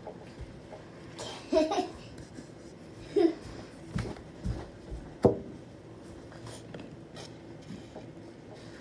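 Quiet room tone broken by a couple of brief voice sounds and a few sharp knocks, the loudest knock a little past the middle.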